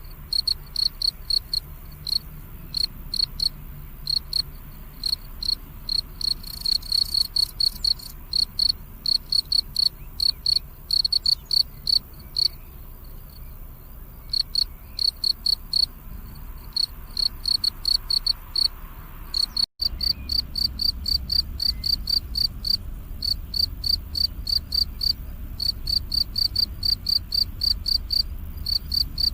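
A cricket chirping: short, high-pitched chirps repeated two to three times a second, with a pause of about two seconds near the middle before it resumes.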